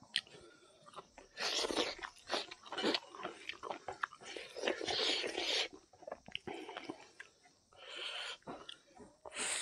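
Close-miked chewing and crunching of a mouthful of food, in irregular bursts with wet clicks. A hand squishes and mixes rice and curry on a wooden plate.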